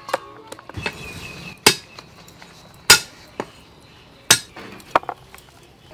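Cleaver chopping on a round wooden chopping block: four loud, sharp chops roughly a second apart, with lighter knocks in between.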